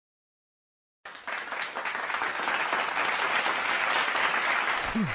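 Audience applauding, a small crowd clapping, starting suddenly about a second in and dying away near the end.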